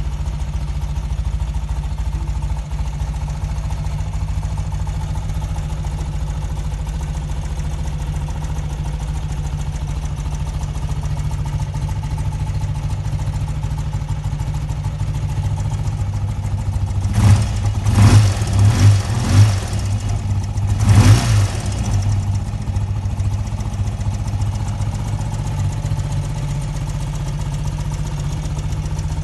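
1992 BMW R80GS's air-cooled flat-twin boxer engine idling steadily, with five or six quick throttle blips bunched together about two-thirds of the way through.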